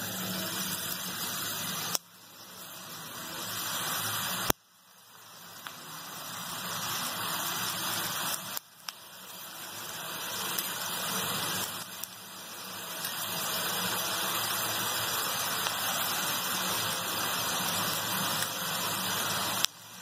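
Chakli dough spirals deep-frying in hot oil: a steady sizzle of oil bubbling around the fresh dough. It cuts out abruptly four times and builds back up each time.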